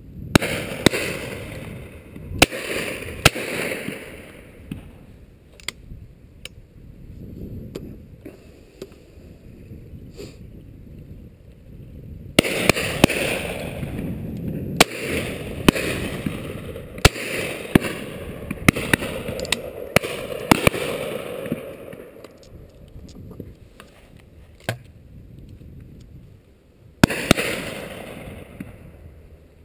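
Shotguns firing at driven pheasants: about a dozen reports from several guns, some close and loud, others farther off, each followed by a rolling echo. The loudest groups come about a second in, around twelve to sixteen seconds in, and near the end.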